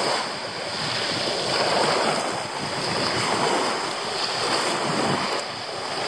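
Small sea waves washing in and out over a pebble beach, a steady wash that swells and eases.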